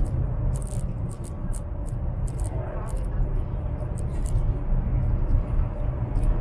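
Steady low rumble of a high-speed train at speed, heard from inside the passenger carriage, with many light, irregular high ticks over it.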